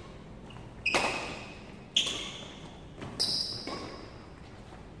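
Badminton rally: racket strikes on the shuttlecock, three sharp hits about a second apart, each echoing in the hall, with shoes squeaking on the court floor alongside them.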